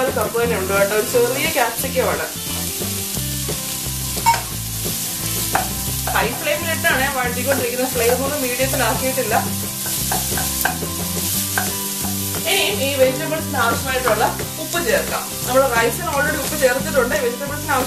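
Chopped vegetables sizzling in hot oil in a nonstick wok over a high flame, stirred and scraped with a wooden spatula throughout. Background music plays along with it.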